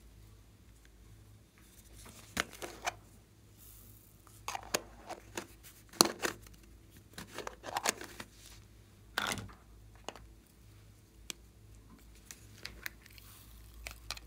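Small plastic containers of slime add-ins being handled: irregular sharp clicks, taps and short scrapes as lids come off and foam beads and glitter are tapped out onto the slime.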